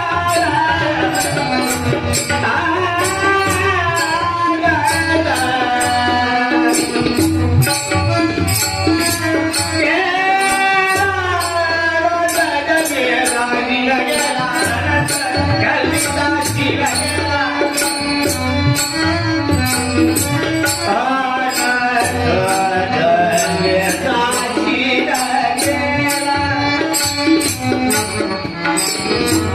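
A man sings a Marathi devotional bhajan in a strong, ornamented voice with long gliding phrases. He is backed by a steady held drone, small hand cymbals clashing in a regular beat, and a drum.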